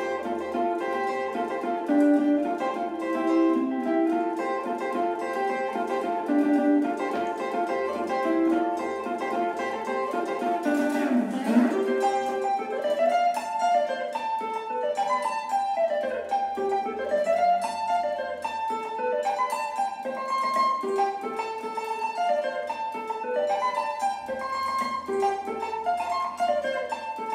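Electric guitar played lead in Congolese rumba/ndombolo style: fast, bright picked runs of notes. About eleven seconds in the pitch dives deep and comes back up, followed by repeated swooping bends up and down.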